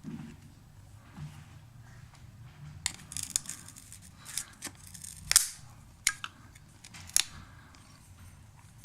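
Knipex side cutters snipping into the thin aluminium rim of a jammed lens filter, cutting slots so it can be turned off. A handful of sharp snaps come irregularly through the middle of the stretch, the loudest about five seconds in, over a faint steady low hum.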